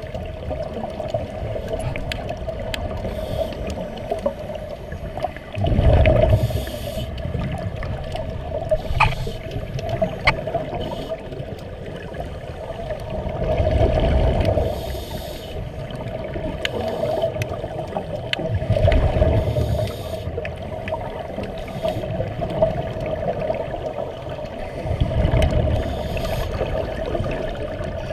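Scuba regulator exhalation bubbles, heard underwater: a low bubbling rush four times, every five to eight seconds, over a steady underwater hum.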